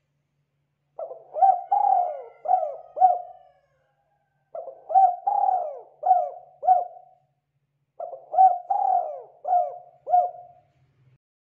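Spotted dove cooing: three phrases of about five notes each, a second or so apart.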